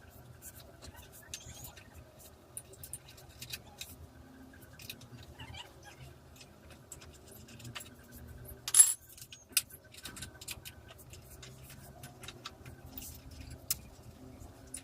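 Scattered small metallic clicks and clinks of hand tools and bolts as the Allen bolts of a motorcycle grab handle are undone, with one loud knock about nine seconds in, over a steady low hum.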